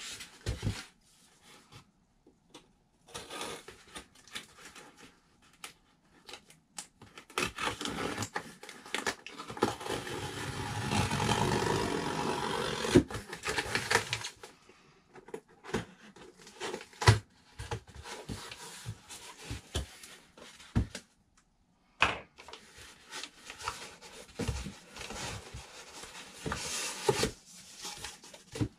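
A long cardboard shipping box being handled and opened by hand: packing tape torn and peeled, cardboard flaps rubbing and scraping, with knocks as the box is turned over and set down. A longer, louder stretch of tearing and rustling comes around the middle.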